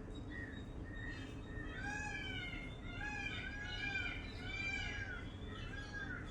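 Birds giving a run of mewing calls, each rising then falling in pitch, several overlapping at different pitches from about two seconds in until near the end. A few short single chirps come before them.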